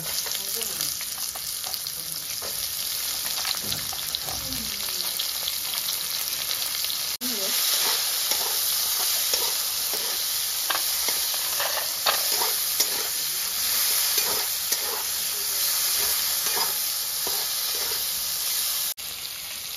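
Onion and whole spices frying in hot oil in a pan, sizzling steadily while being stirred, with short scrapes against the pan. The sizzle drops out briefly about seven seconds in and again near the end.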